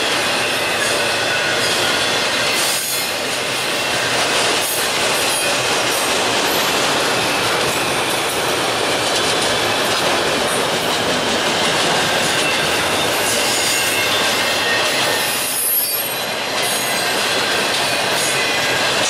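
Freight cars of a long Norfolk Southern train, autoracks and then intermodal cars, rolling past close by. Steady loud wheel-on-rail noise with a high, thin wheel squeal running through it, and brief dips about three seconds in, about five seconds in and near the end as gaps between cars go by.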